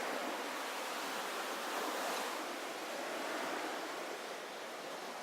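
Ocean surf washing on the shore: a steady rush of breaking waves that swells about two seconds in and then eases a little.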